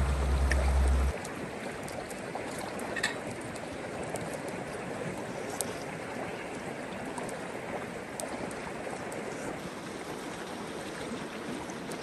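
Mountain river rushing steadily, a constant wash of flowing water. A deep low hum lies over it at first and stops suddenly about a second in, and a few faint clicks sound over the water, the clearest about three seconds in.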